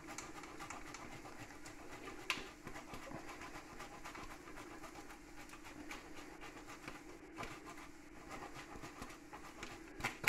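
Hard Italian cheese being grated on a metal box grater: quiet, repeated rasping strokes over a low steady hum, with a couple of sharper knocks near the end.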